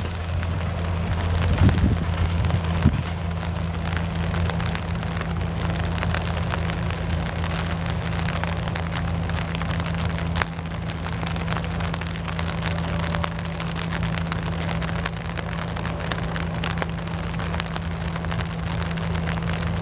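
Rain falling steadily, with many small drop ticks, over a steady low drone of the diesel-powered passenger train running. A few knocks come about two and three seconds in.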